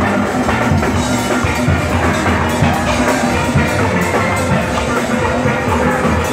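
A steel band playing: steel pans, including big barrel-sized bass pans, carrying the tune and harmony over percussion that keeps a steady beat.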